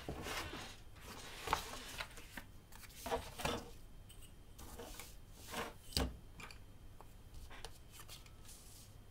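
Paper and a grid paper pad being handled and laid on a tabletop: scattered rustling with light knocks, the sharpest about six seconds in.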